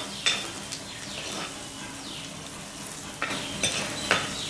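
Chopped pirandai stems and garlic sizzling in sesame oil in a clay kadai, stirred with a metal ladle that scrapes against the pot several times.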